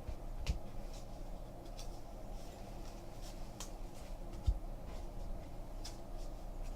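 Trading cards being handled and sorted on a table: faint scattered clicks and scrapes over a steady low hum, with two soft thumps, one about half a second in and one about two-thirds through.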